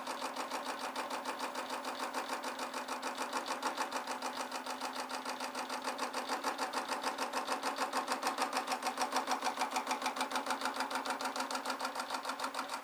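Metal lathe turning a roughly cut piece of half-inch steel plate, clamped between tubes by compression, while the tool rounds it off. The cut is interrupted, with an even pulsing of about four to five beats a second, and it gets a little louder around the middle.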